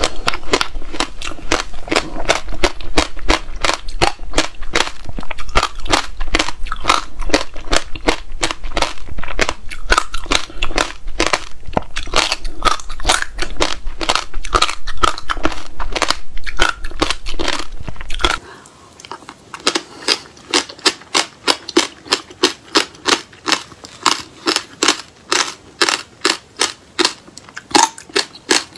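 Close-miked chewing of frozen passion fruit pulp: a dense run of crunching and crackling from the seeds. About two-thirds of the way in, a low hum drops out and the crunches come separately, about two a second.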